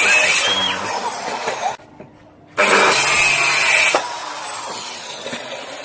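An electric power tool motor running on wood. It cuts out for under a second about two seconds in, starts again, and drops to a lower level at about four seconds.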